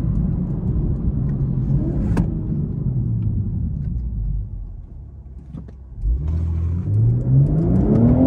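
2022 BMW M240i's turbocharged 3.0-litre straight-six pulling at steady throttle, falling quieter as the throttle is lifted about four and a half seconds in, then revving up again with a rising note under hard acceleration from about six seconds.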